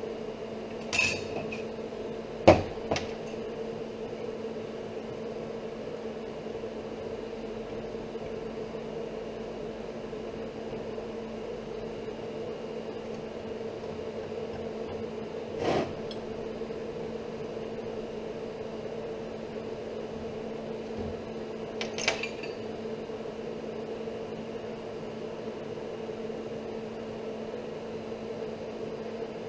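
Steady machine hum, with a few sharp metallic knocks and clicks as a steel angle section and a scriber are handled on a steel workbench; the loudest knock comes about two and a half seconds in, others near the start, in the middle and about two thirds through.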